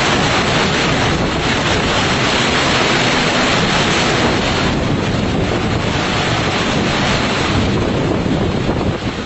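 Strong typhoon wind buffeting the microphone: a loud, steady rushing roar with a gusty rumble underneath.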